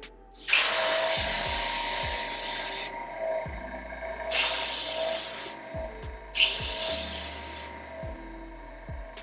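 Hair colour enhancement spray hissing out in three bursts. The first lasts about two and a half seconds and two shorter ones follow.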